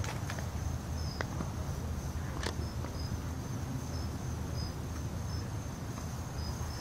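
Insects trilling: a steady high-pitched chirring with short repeating chirps, over a low steady rumble, with a few faint clicks.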